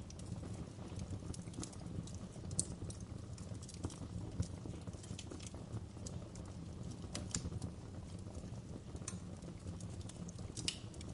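Wood fire crackling in a fireplace: irregular sharp snaps and pops, a few louder than the rest, over a steady low rumble of burning logs.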